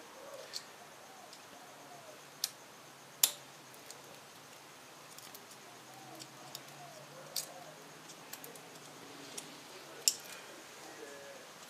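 Small metal parts clicking and clinking as hands work at the fuel injectors and fuel rail of a 4.7 V8, fitting the injector retaining clips. A handful of scattered sharp clicks: the loudest about three seconds in, another near ten seconds.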